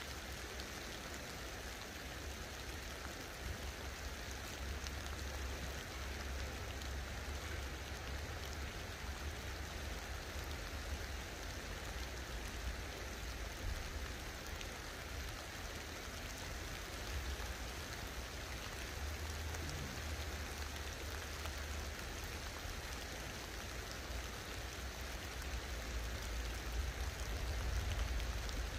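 Light rain falling on a river and its banks: a steady, even hiss. A low rumble comes and goes underneath it and swells near the end.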